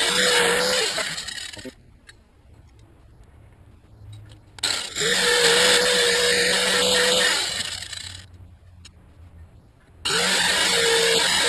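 Electric angle grinder with an abrasive disc grinding small metal plates, a steady motor whine under a harsh grinding hiss. It runs in three bursts, stopping and winding down twice for a couple of seconds in between.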